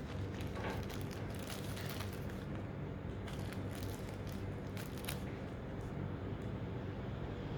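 Small plastic packaging crinkling and clicking as it is handled and opened, with scattered sharp crackles through the first five seconds, over a steady low room hum.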